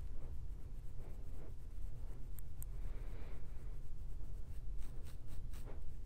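Fingernails scratching a dandruff-flaked scalp through short, dense coily hair: a dry, scratchy rasping in irregular repeated strokes, over a steady low rumble.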